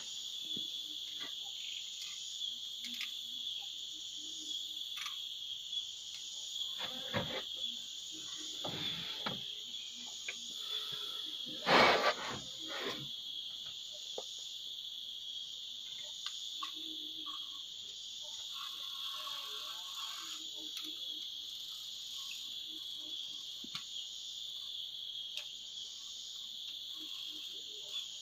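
Steady high-pitched insect chorus, with scattered faint clicks and one louder knock about twelve seconds in.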